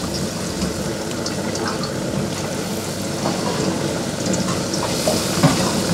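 Battered pond smelt deep-frying in a small pot of hot oil as tempura: a steady sizzle with scattered crackles.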